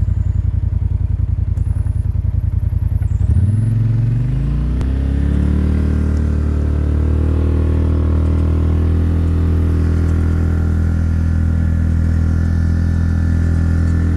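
850 cc ATV engine idling with a rapid, even pulse, then revving up about three seconds in and holding a steady higher speed.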